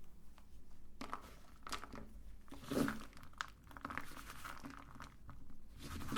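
Colourful praline candies crinkling and crunching in irregular crackly bursts with sharp clicks, as in a meat-grinder experiment.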